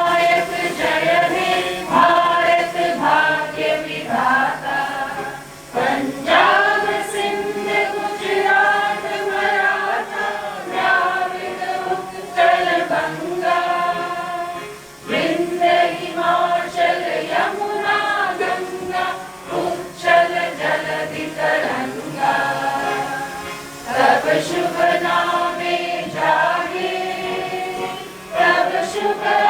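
A choir singing, with held notes that change every second or two and brief breaks between phrases.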